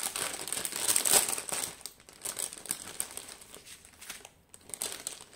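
Plastic packaging crinkling and rustling as it is handled, busiest in the first two seconds, then thinning to scattered crackles.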